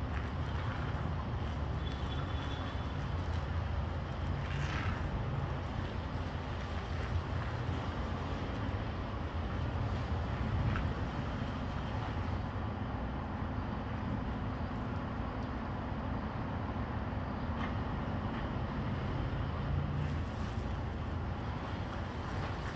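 Diesel tractor-trailer engine running at low revs while the truck manoeuvres in reverse, a steady low rumble.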